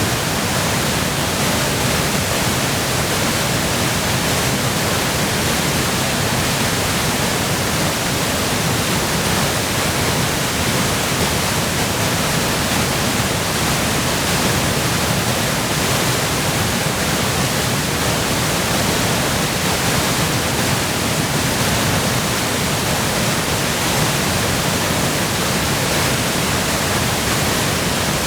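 Waterfall in high flow, swollen by spring melt and heavy rain: a loud, steady, even rush of falling water with no breaks.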